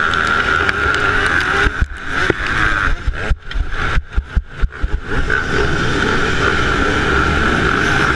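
2008 Yamaha YZ125 single-cylinder two-stroke motocross engine running at high revs. From about two to five seconds in the sound breaks up into short bursts and sharp knocks, then settles back to a steady high drone.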